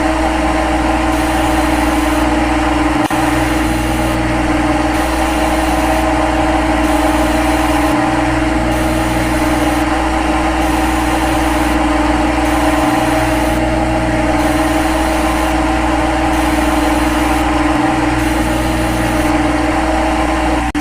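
CNC lathe running with a steady mechanical hum. The low rumble dips briefly about every five seconds.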